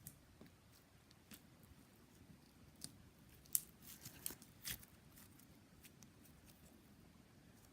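Sticky, alcohol-softened slime handled and pulled apart by hand, giving a few faint sharp clicks and snaps over near silence, most of them a few seconds in.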